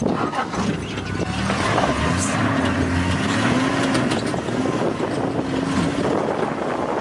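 Vehicle engine running, heard from inside the vehicle, its pitch wavering slightly.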